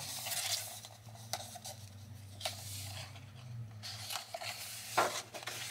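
Paper rustling and rubbing as hands handle and turn the pages of a paperback coloring book, with a few soft crisp paper sounds, the loudest about five seconds in. A low steady hum runs underneath.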